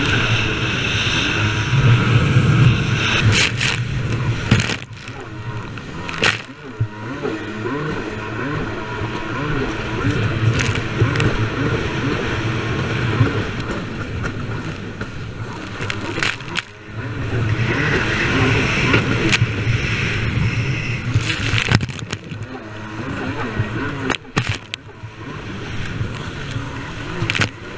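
Jet ski engine running hard across the water, its note swelling and easing off several times with the throttle. Sharp slaps of the hull on the chop come every few seconds, over the hiss of spray and wind.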